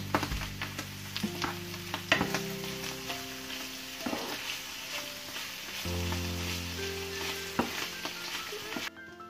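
Diced raw chicken sizzling at medium heat in a nonstick frying pan with onions and mushrooms, stirred with a wooden spoon. The spoon makes frequent sharp clicks and scrapes against the pan over the steady sizzle.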